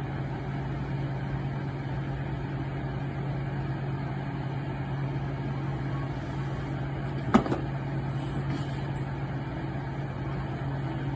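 A steady low mechanical hum, like a motor or engine running, with a single sharp click about seven seconds in.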